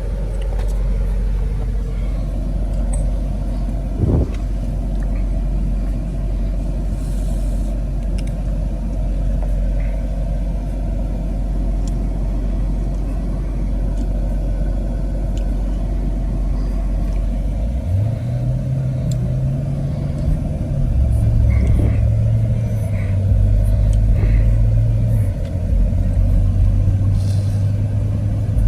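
A car driving, with a steady low rumble of engine and road noise. About two-thirds of the way through, a loud low engine drone comes in and shifts in pitch several times.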